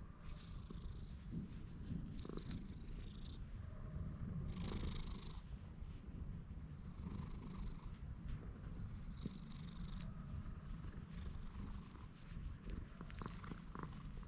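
Black-and-white cat purring steadily and continuously close up while it is stroked.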